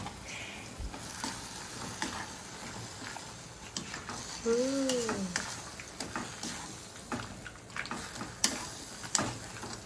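Shimeji mushrooms frying in a pan with soy and oyster sauces, sizzling steadily while a utensil stirs and clicks against the pan. About halfway through, a brief hummed voice rises and falls.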